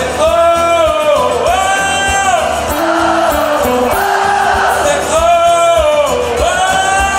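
Live country band with acoustic guitars playing while a voice sings long held notes, each about a second long and sliding down at its end, in two pairs.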